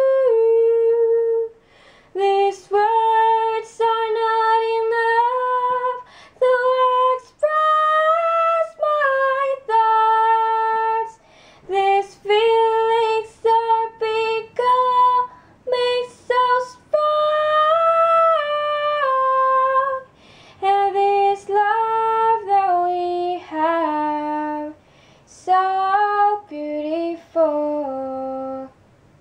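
A woman singing a slow melody unaccompanied, in phrases of held notes stepping up and down, with short pauses between phrases.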